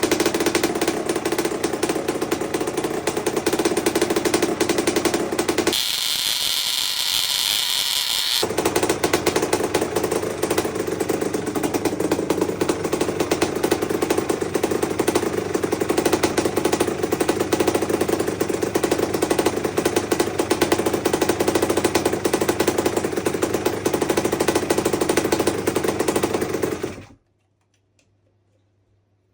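1984 Honda CR250's single-cylinder two-stroke engine running with a rapid, steady rattling beat, briefly giving way to a hiss about six seconds in, then stopping abruptly near the end.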